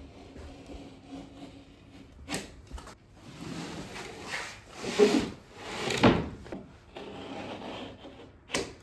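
A sheet of plasterboard handled on a concrete floor and scored with a utility knife: scraping and rubbing strokes, loudest about halfway through, with a few sharp knocks.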